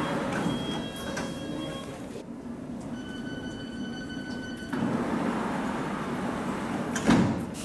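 London Underground S7 Stock train standing with its doors open: a steady pitched door warning tone sounds for about two seconds in the middle. Then the sliding doors shut with a loud thud near the end, over a steady hum of platform and train noise.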